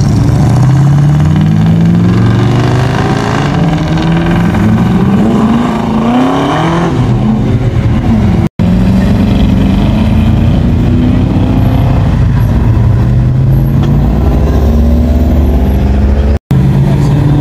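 Car engines revving and accelerating away one after another, loud, their pitch climbing each time a car pulls off. The sound cuts out for an instant twice.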